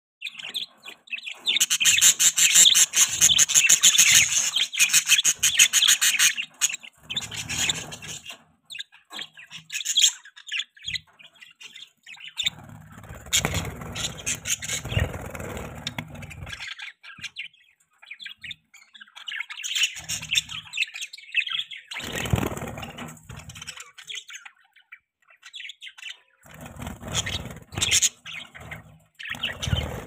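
A flock of budgerigars chirping and chattering, a dense busy chorus for the first several seconds that then comes and goes in shorter bursts.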